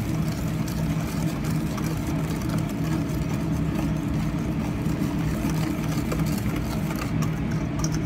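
Steady low machine hum, with a wire whisk scraping and clinking in a stainless steel bowl as hot milk is whisked into an egg and sugar mixture to temper it.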